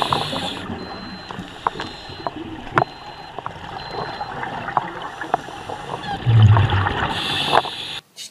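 Underwater sound of scuba divers breathing: gurgling bubbles from the regulator exhaust with scattered sharp clicks, and a louder low rush of bubbles about six seconds in.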